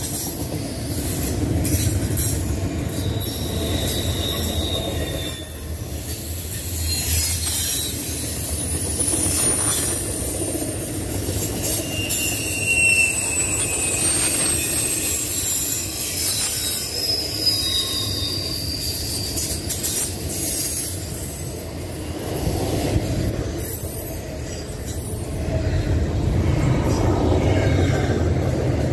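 Double-stack intermodal freight train rolling past: a steady rumble of well-car wheels on the rails, with high-pitched wheel squeal coming and going throughout.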